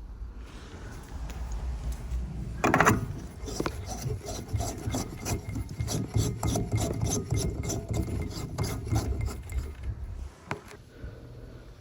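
Quick back-and-forth rubbing or scrubbing strokes on a hard surface, about three a second, starting about three seconds in with one louder stroke and stopping near the end. A single sharp knock follows.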